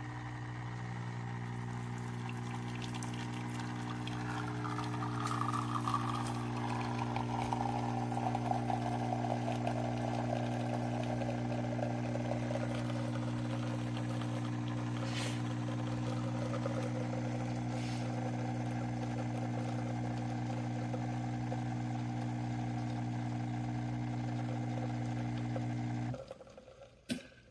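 De'Longhi La Specialista Maestro espresso machine's pump running with a steady hum while liquid pours into a cup. The pump cuts off suddenly near the end, and a short click follows.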